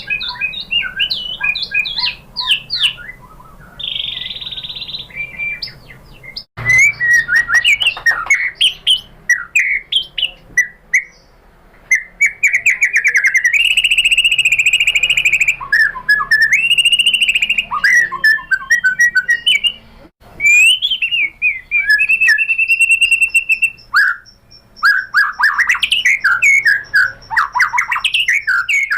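White-rumped shama (murai batu) singing a long, varied song of rapid whistled phrases, fast trills and a few long held buzzy notes. The song breaks off and restarts abruptly several times.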